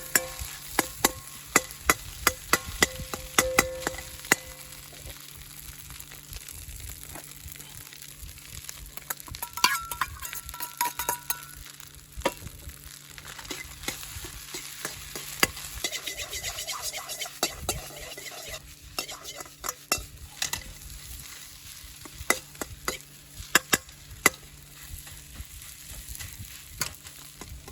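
Stir-frying in a Chinese wok over a wood fire: food sizzling steadily, with frequent sharp clicks and scrapes of a utensil against the pan.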